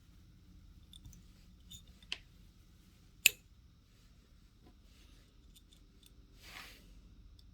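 Scattered sharp clicks and taps of small metal parts of a 3/8-inch ratchet being handled and fitted back together, the two loudest about two and three seconds in, with a brief soft rustle near the end.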